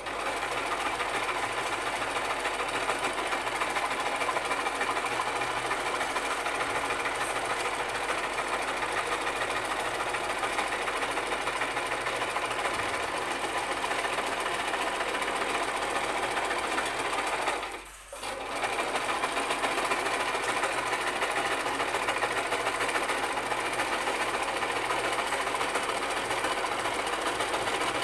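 Sewing machine stitching at a steady run, stopping briefly about two-thirds of the way through, then running on.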